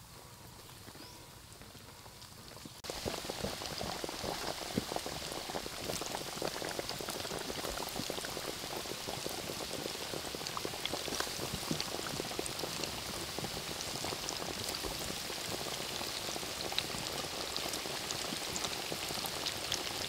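Hot oil in a large wok bubbling and crackling as coated chicken breast pieces deep-fry: a dense sizzle full of small pops. It is faint at first and comes in suddenly about three seconds in, then holds steady.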